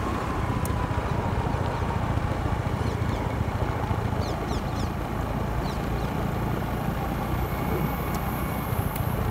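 Small motor scooter engine running steadily while riding along a paved road.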